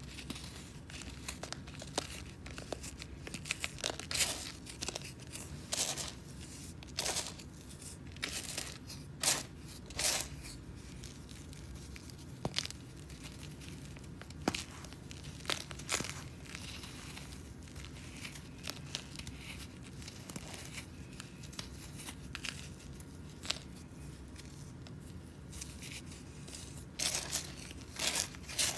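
Chunks of dry, compacted sand crumbled between the fingers, with crumbs and loose sand trickling onto a sand pile: irregular crunching and crackling, with a run of louder crunches near the end.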